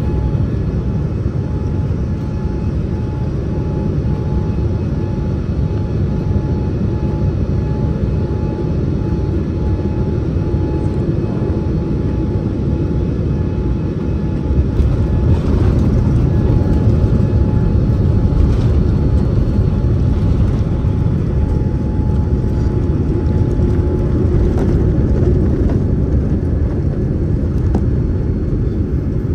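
Steady rumble of a Boeing 787-9 jet airliner in flight or on the ground, with a faint steady whine that fades out late on; it grows a little louder about halfway through.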